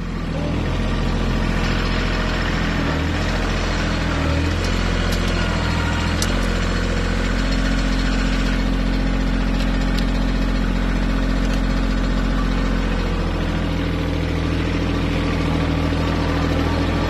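Kioti CK2610 compact tractor's three-cylinder diesel engine running as the tractor drives along dragging a box blade. It comes up in speed at the start, its pitch wavers a few seconds in as the load changes, and a few faint clicks are heard.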